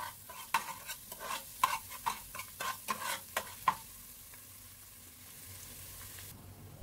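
A long metal spoon clinking and scraping against a stainless-steel pot while minced garlic is stirred in frying oil, over a faint sizzle. The clinks stop about four seconds in, leaving only the faint sizzle.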